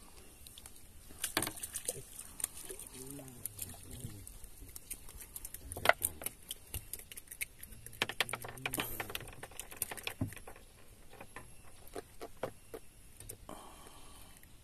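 Irregular sharp clicks and light knocks from fishing tackle being handled in a wooden boat, coming thickest in the middle and thinning out near the end.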